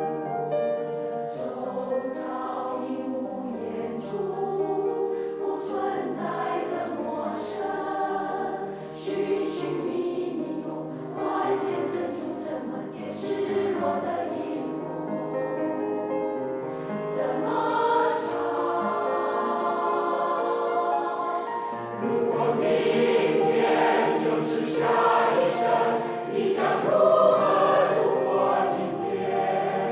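A choir singing a song in parts; the singing grows louder about two-thirds of the way through.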